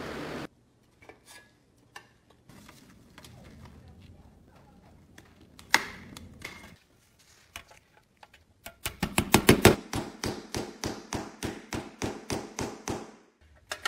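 Small hammer tapping a rivet into the painted metal frame of a toy tow truck: a fast, even run of sharp metallic taps, about four or five a second, starting about nine seconds in and loudest at the start. Before it come faint handling sounds and a single sharp click.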